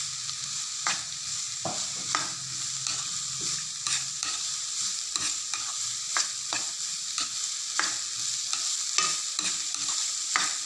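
Diced vegetables sizzling in ghee in a nonstick wok while a spatula stirs them, scraping and tapping against the pan about once or twice a second over a steady high hiss.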